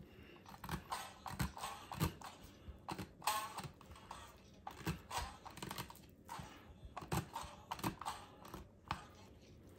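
Hand-held blade meat tenderizer (Jaccard) punched again and again into a raw chicken drumstick on a plastic cutting board: a run of quick, irregular clicks, one or two a second, as the blades pierce the skin.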